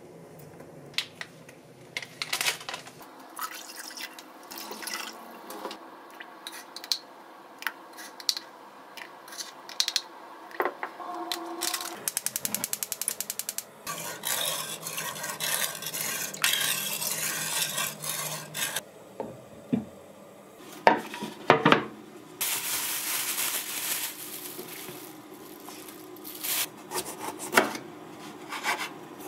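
A spoon and then a wooden spatula stirring and knocking in a pot of vinegar pickling liquid. A gas burner igniter clicks rapidly for about a second and a half as it lights, and stretches of hiss follow. Near the end, a knife chops red bell peppers on a wooden cutting board.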